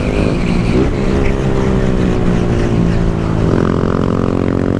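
Motorcycle engine running at a steady cruising speed, heard from the rider's seat with wind rushing past; the engine note shifts slightly about three and a half seconds in.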